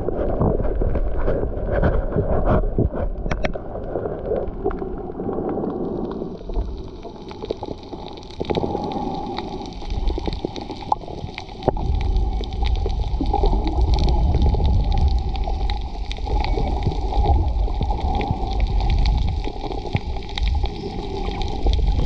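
Muffled underwater water noise picked up by a submerged camera on a coral reef: a steady gurgling rush with many scattered small clicks and crackles.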